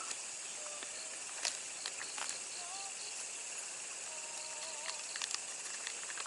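Crickets and other insects chirping steadily in a dense chorus of repeating high chirps, with a few faint clicks.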